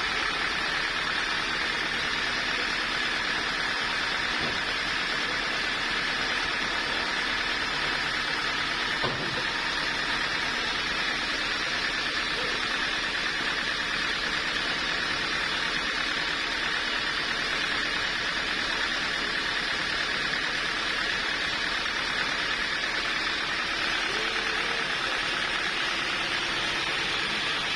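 Sawmill machinery running steadily with a constant high whine.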